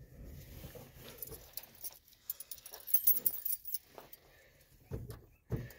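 A bunch of keys jingling and clinking in hand, with a couple of low thumps near the end.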